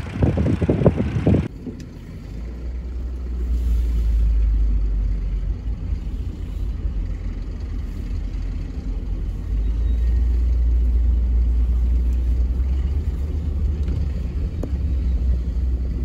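Wind buffeting the microphone for a second or so, then a cut to the steady low rumble of a car being driven, heard from inside its cabin.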